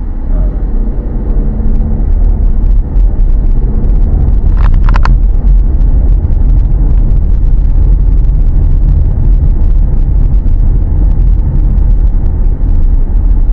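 Steady low rumble of a car driving on a city street: engine and road noise. A brief high-pitched tone sounds about five seconds in.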